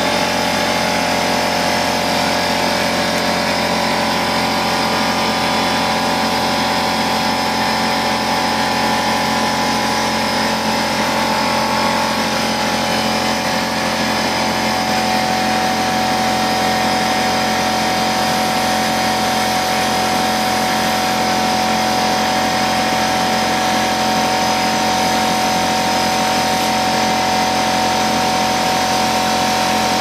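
Electric air compressor running steadily, building pressure in its tank, which was low on air. It is loud and noisy.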